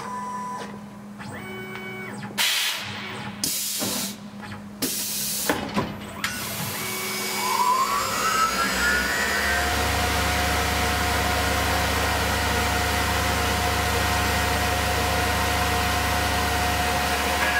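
Tormach PCNC 1100 CNC mill's automatic tool changer swapping in a tool: several sharp pneumatic hisses and clunks over the first six seconds. Then the spindle spins up with a rising whine and runs on steadily with a low hum.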